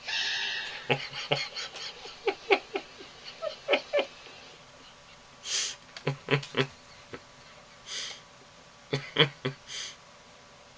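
A person laughing in short voiced bursts and breathy exhales, opening with a sudden loud burst about half a second long.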